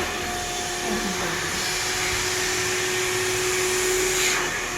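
Handheld electric hair dryer blowing steadily, a rush of air over a steady motor hum, swelling briefly near the end.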